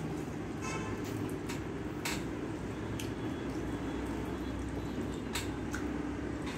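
Fingers mixing rice with dal and aloo posto on a steel plate, then eating: soft wet squishing with a few sharp clicks, over a steady low hum.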